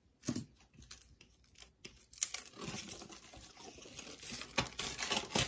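Plastic wrapping of a comic book pack being torn open and crinkled, with irregular crackles and rustles and a louder rustle near the end.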